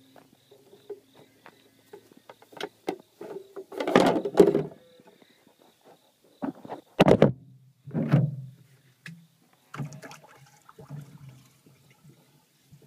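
Holstein bull calves shuffling and bumping about on a livestock trailer, making irregular knocks, thumps and rattles. The loudest are a cluster about four seconds in and two more about seven and eight seconds in.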